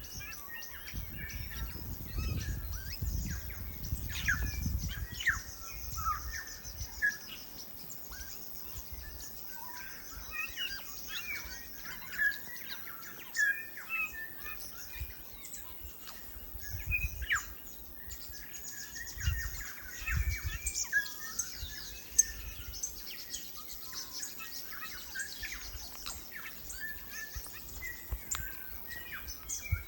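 New Zealand bellbirds (korimako) singing: a continuous stream of short, clear chirps and notes, over a steady high-pitched hiss.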